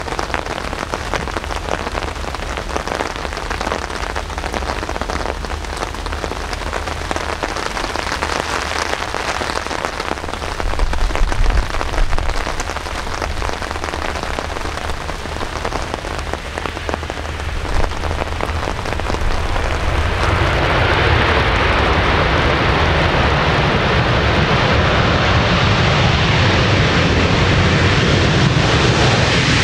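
Steady rain hiss. About twenty seconds in, the jet noise of a landing Boeing 737-800's CFM56 engines rises and stays loud as the airliner rolls out along the wet runway.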